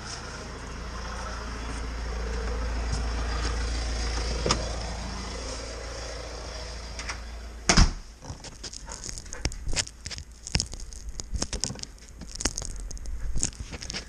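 A steady, noisy rumble for about the first half, then a sharp knock about eight seconds in. After it come scattered clicks, crackles and rubbing as hands handle the quadcopter's onboard camera.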